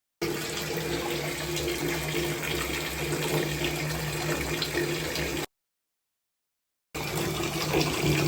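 Water running steadily from an old bathtub's spout at a slow, low flow, the problem that the tub's diverter repair is meant to fix. The sound stops dead for about a second and a half a little after five seconds in, then resumes.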